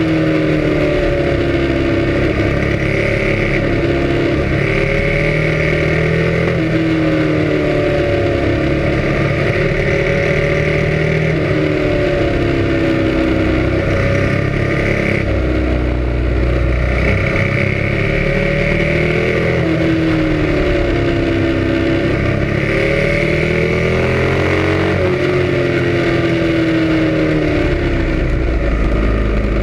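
Sport motorcycle engine running under way, its pitch rising and falling again and again as the rider accelerates out of and rolls off into a string of tight curves.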